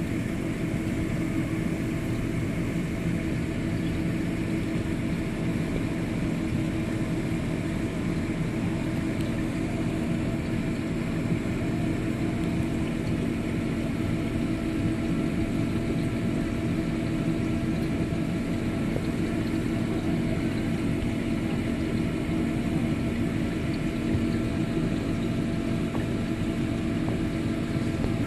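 Steady mechanical hum with a low drone of several held tones, unchanging throughout.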